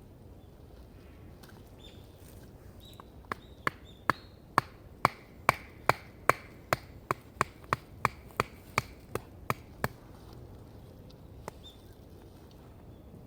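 A run of about twenty sharp knocks, two or three a second, lasting about six seconds.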